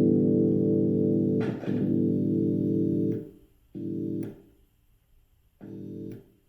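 Amplified electric guitar chord ringing, then cut dead and switched back on in short stretches as the output's hot wire is shorted to ground: the kill-switch stutter effect. The sound stops abruptly about three seconds in and returns twice for about half a second each, each time starting and stopping sharply.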